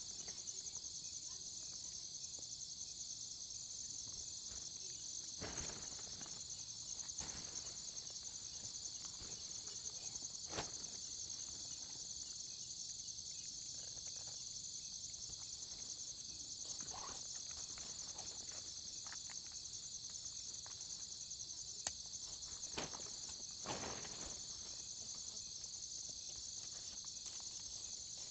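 Steady high-pitched chorus of insects trilling, with a few faint knocks scattered through it.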